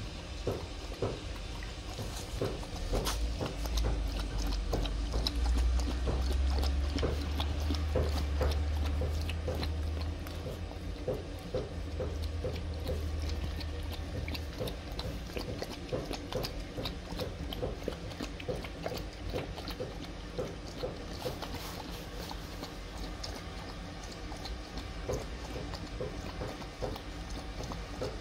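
A dog lapping milk from a shallow plastic container: a steady rhythm of short, wet tongue laps. A low rumble sits underneath from about three to fourteen seconds in.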